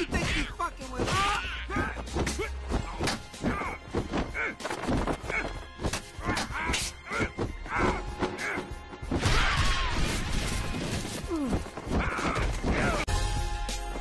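Fight-scene sound effects: a rapid string of punch, kick and smack impacts over backing music.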